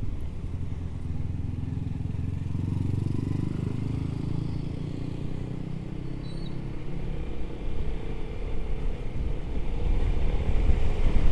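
Motorcycle engine running under way with low road rumble. The engine note rises in pitch for a couple of seconds, as if accelerating, then eases off.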